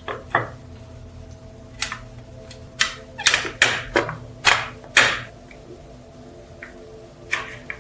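Irregular knocks and clicks, about a dozen, of metal parts and tools being handled during restoration work, over a faint steady hum.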